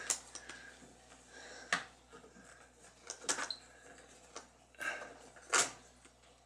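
Scattered light clicks and taps, about half a dozen with the loudest a little past halfway: ohmmeter test probes being handled and pressed onto the wire connectors of a refrigerator's control board.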